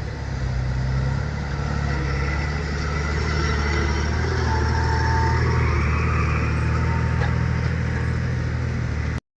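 Heavy construction machine's engine running. It works harder in the middle of the clip, with a whine that rises and falls, then the sound cuts off abruptly near the end.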